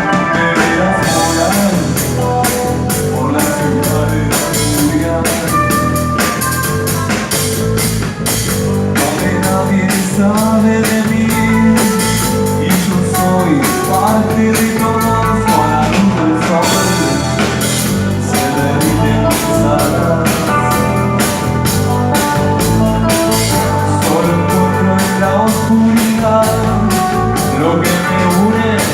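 Rock band playing with drum kit, bass and electric guitar, a voice faintly in the mix.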